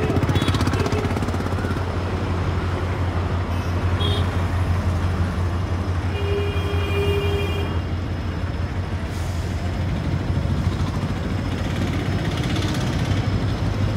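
WDP-4 diesel locomotive's 16-cylinder two-stroke engine working as it pulls a departing passenger train, a steady low drone. A short high steady tone sounds about six seconds in.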